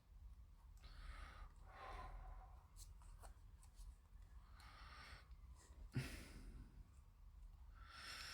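Near silence with a few faint, soft rustles and one small click about six seconds in: masking tape being pulled and pressed onto a plastic model kit to hold glued parts in place.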